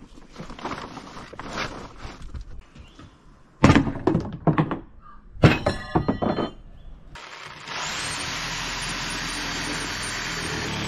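Several loud thumps and clattering knocks through the middle, then a circular saw starts about two-thirds of the way in and runs steadily, cutting through a reclaimed timber beam.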